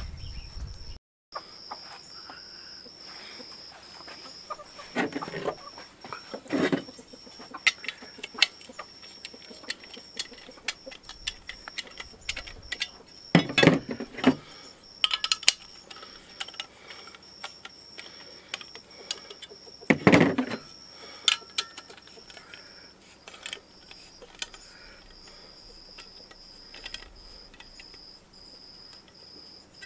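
Short pieces of steel tubing and hand tools being handled on a workbench: scattered clinks and knocks with a few louder thumps, no power tool running. A steady high insect trill runs underneath.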